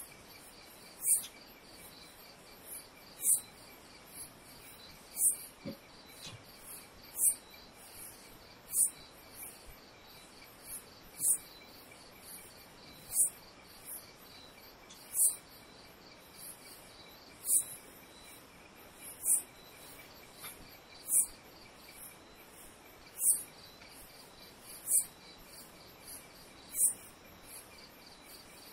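Insects calling: a sharp, high chirp about every two seconds over a steady, faint, high trilling.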